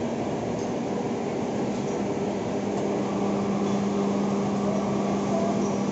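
Heavy roll-turning lathe running with a large grooved steel mill roll in it: a steady machine hum with a constant low tone.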